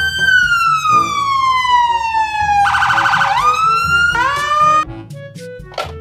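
Police car electronic siren wailing, loud: the pitch peaks near the start and falls slowly, breaks into a rapid warble about three seconds in, then rises again in short sweeps before cutting off just before five seconds.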